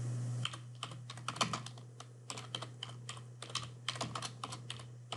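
Computer keyboard typing: irregular runs of key clicks as a short name is typed, over a steady low hum.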